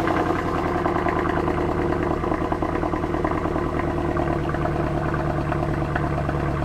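Mercedes-Benz C63 AMG Performance (W204) idling steadily just after a cold start, its naturally aspirated 6.2-litre V8 heard through the stock exhaust at the quad tailpipes. A deeper note grows in a little past halfway.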